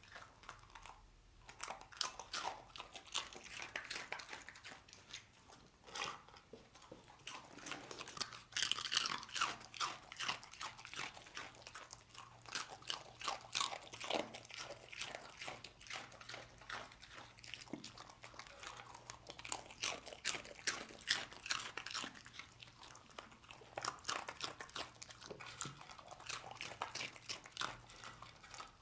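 A dog crunching and chewing hard, dry spiral pasta snacks: a rapid, continuous run of crisp crunches, louder in bursts about a third of the way in and again past the middle.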